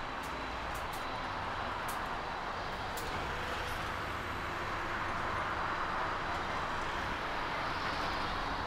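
Jet engines of a Boeing 747-400 freighter taxiing, a steady rush over a low rumble with a faint high whine, growing slightly louder as the aircraft turns toward the runway.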